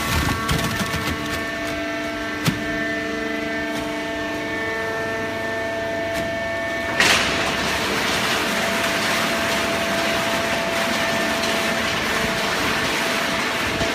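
Hydraulic cardboard baling press running: a steady machine hum with several whining tones and a few knocks, the sharpest about two and a half seconds in. About seven seconds in a louder rushing noise starts suddenly and then holds steady.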